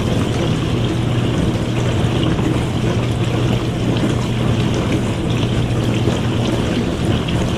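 Dishwasher running through a wash cycle: a steady motor hum under the constant splash and trickle of water inside the tub.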